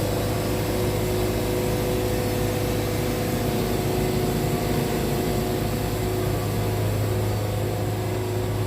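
Wood-Mizer band sawmill running steadily, its engine under load as the band blade saws through a pine log, with an unbroken hum.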